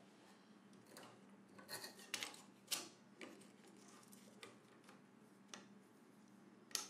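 Faint, scattered clicks and short scrapes from a Ruixin Pro RX-008 knife sharpener's stone rod and plastic handle being handled and adjusted, the busiest stretch about two seconds in, over a faint steady hum.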